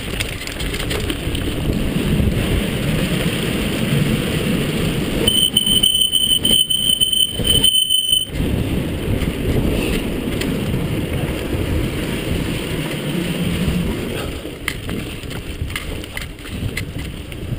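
Mountain bike rolling fast down a dirt trail: steady tyre rumble and rattle of the bike. About five seconds in, a high-pitched squeal sounds for about three seconds, typical of disc brakes under braking.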